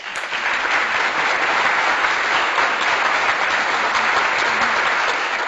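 Crowd applause, a dense steady clatter of many hands clapping that starts suddenly, added as a celebratory sound effect.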